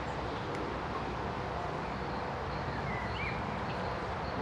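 Steady outdoor background hiss with a faint bird chirp about three seconds in.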